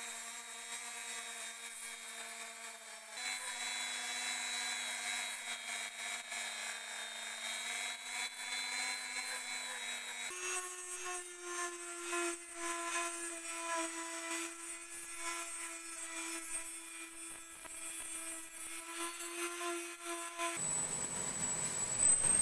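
Handheld rotary tool with an abrasive bit grinding and polishing small steel parts of a pipe wrench, its motor whining steadily. The whine jumps to a higher pitch about ten seconds in. About two seconds before the end it gives way to a power tool with a sanding disc, a hiss with a high whine.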